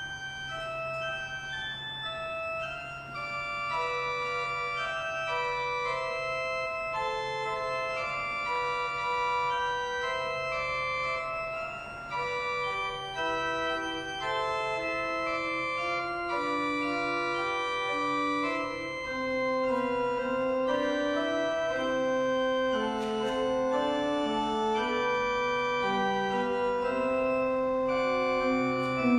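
Organ playing a slow piece of sustained chords, with lower notes joining about halfway through.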